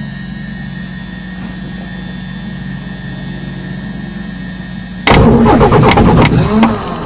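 Steady hum in the cockpit, then about five seconds in the starter engages and the Jabiru aircraft engine cranks and fires loudly, its pitch rising and falling, before dropping away near the end.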